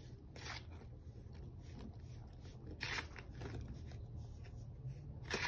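Hands squeezing and crumbling clumps of baking soda, giving soft crunchy squeaks. Three louder crunches come about half a second in, about three seconds in, and near the end.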